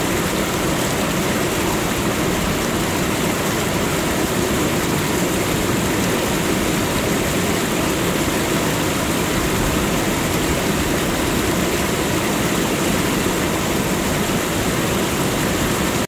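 Steady, unbroken rush of water falling at Victoria Falls (Mosi-oa-Tunya), a very wide, high waterfall.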